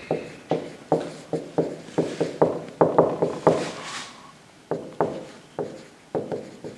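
Felt-tip marker tapping and rubbing on a whiteboard as words are written by hand: an uneven run of short, sharp taps, about three a second, with a brief pause just after the middle.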